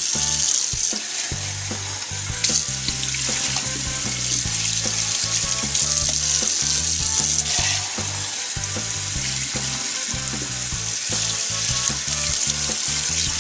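Kitchen tap running steadily into a sink, the stream splashing through a fine mesh strainer as tomato seeds are rinsed.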